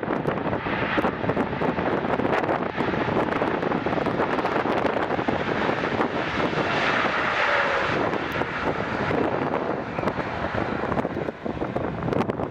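Airplane engines passing by, the engine noise strongest about seven seconds in with a faint falling tone as it goes past. Wind buffets the microphone.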